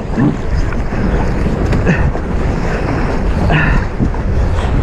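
Strong wind buffeting the microphone over the steady rush of water along the hulls of a Hobie 16 catamaran sailing hard in about 25 knots of wind.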